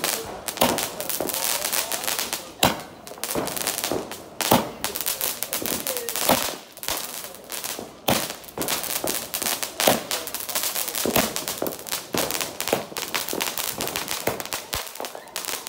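Fireworks going off: a continuous dense crackle with a sharper, louder pop about every two seconds.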